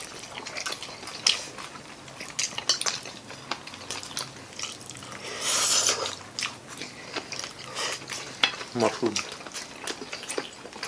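Forks clicking and scraping on plates as several people eat, with a noodle slurp of pancit canton about six seconds in.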